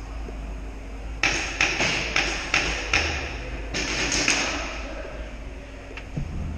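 Paintball marker firing in a rapid string of about nine sharp shots, roughly three a second. The shots start about a second in, pause briefly, and stop a little before halfway through, over steady background hum.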